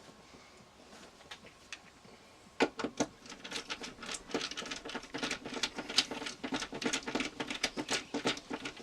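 Small hardware and tools being handled during wiring work: after a quiet start, a quick, irregular run of light clicks and rattles sets in about two and a half seconds in.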